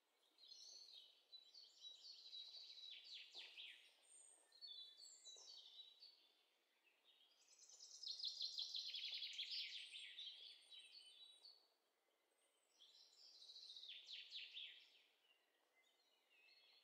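Faint birdsong: birds chirping in four separate bursts of rapid high notes, the loudest about halfway through.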